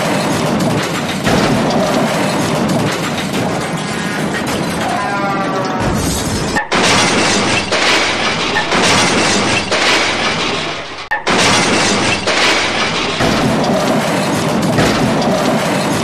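Loud dubbed crash and smash sound effects, a dense noisy din that breaks off abruptly twice, about six and a half and eleven seconds in.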